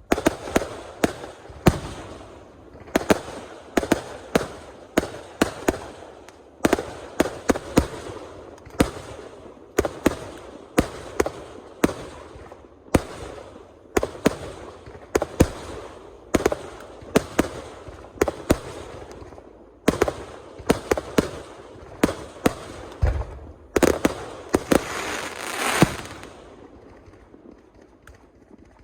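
Aerial fireworks going off: a rapid, irregular string of sharp bangs with crackling between them. The bangs swell into a dense burst of crackling a few seconds before the end, then die away.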